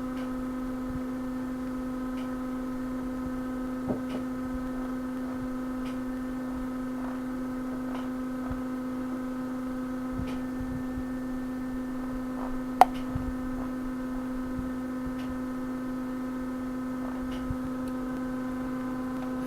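A steady electrical hum, one even tone with overtones, with faint ticks about every two seconds and one sharper click about 13 seconds in.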